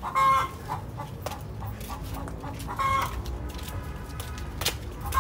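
Hens clucking in the coop: two short calls, one right at the start and another about three seconds in. A single sharp click comes near the end.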